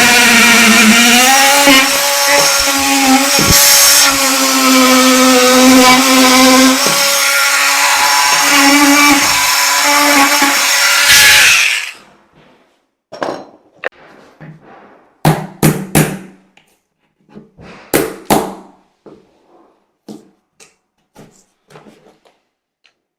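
Power tool running under load for about twelve seconds, its pitch wavering and dipping as it cuts, likely the opening for a power point in the panel; it stops abruptly, then a scatter of short knocks and taps follows.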